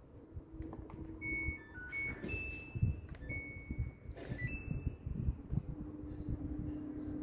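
Samsung top-load washing machine's control panel beeping: a run of short electronic beeps at several different pitches, with knocks from handling. A steady low hum sets in near the end.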